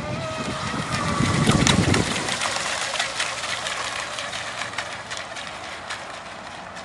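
Brushless electric motor of an RC outrigger racing boat running on the water: a faint whine that sinks slightly in pitch and fades, with wind rumble on the microphone for the first two seconds. After that there is only a faint hissing background with small ticks.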